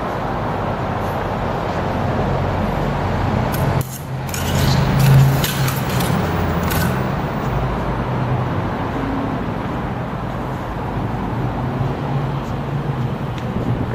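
Steady background rumble with a low hum. Between about four and seven seconds in comes a quick run of sharp clicks and clinks: rapier and dagger blades striking each other in a bout.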